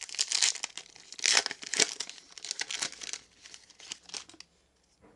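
Foil wrapper of a trading card pack crinkling and tearing as it is ripped open by hand: a rapid run of crinkles that thins out after about three seconds.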